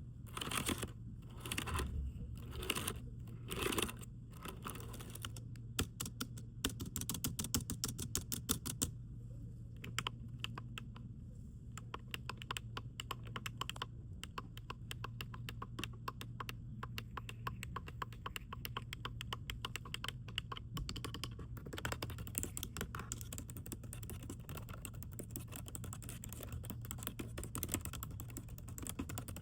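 Typing on a computer keyboard: a few slower, separate key strikes in the first seconds, then fast, steady typing.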